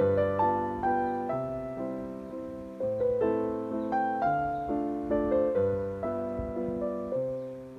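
Background piano music: a gentle melody over bass notes, each chord struck and fading.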